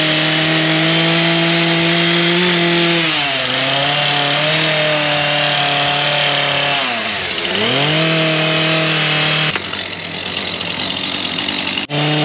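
Two-stroke chainsaw running at high revs, its engine note dipping and recovering twice. Near the end it gives way to a rougher, hissing noise.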